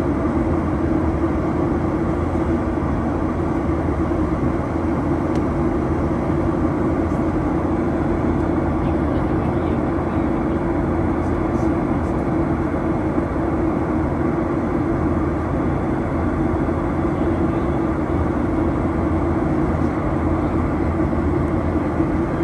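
Steady cabin noise inside a Rex Boeing 737-800 jet airliner climbing after takeoff. It is a constant rush of jet engine and airflow with a low hum underneath, unchanging throughout.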